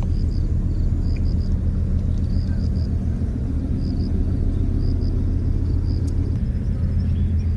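Steady low outdoor rumble with no pitch, like wind buffeting the microphone. Faint high chirps repeat in quick little runs over it.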